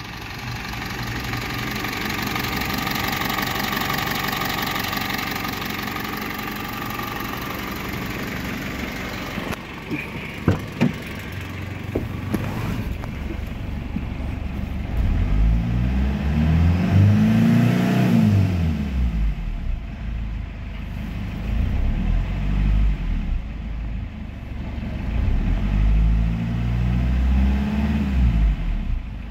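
Foton Tunland's 2.8-litre four-cylinder turbo-diesel running at a steady idle, then revved up and let back down twice: once about halfway through and again near the end. Two sharp clicks come shortly before the first rev.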